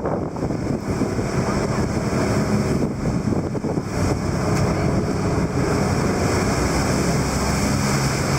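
Boat engine running with a steady low hum, under the rush of waves and wind noise on the microphone.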